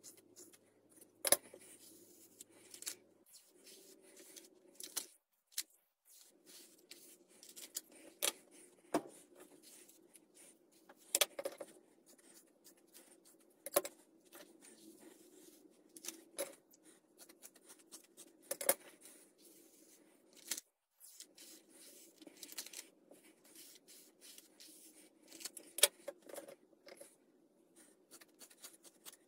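Scissors snipping through long straight hair, one sharp snip every few seconds over a steady low hum.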